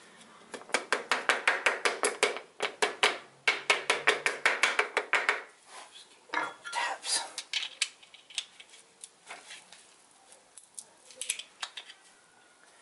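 Rapid metallic ratchet clicking, about six clicks a second in two runs, as a piston ring compressor is tightened around the piston to recompress its rings. This is followed by a few scattered metal clicks and clinks as the compressor and piston are handled.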